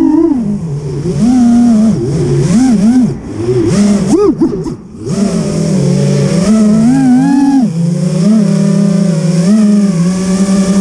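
Racing quadcopter's Lumenier 2206 2450KV brushless motors and propellers whining, the pitch rising and falling rapidly with the throttle, then holding a steadier hum over the last few seconds.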